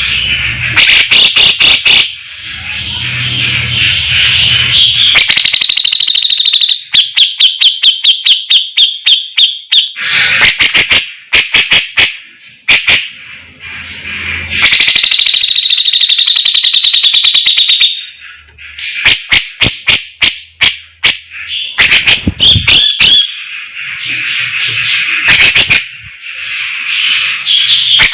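Grey-cheeked bulbul (cucak jenggot) singing loudly in its full-volume 'gacor' style. Harsh, buzzy chattering phrases alternate with fast runs of sharp ticking notes, broken by short pauses.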